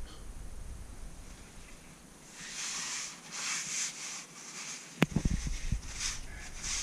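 Scraping and rustling as hands work at the parts of a rear drum brake, then a sharp click about five seconds in, followed by a little clatter.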